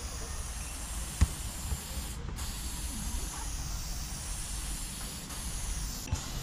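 Aerosol spray-paint can hissing in long bursts, broken off briefly about two seconds in and again near the end. A single sharp click about a second in.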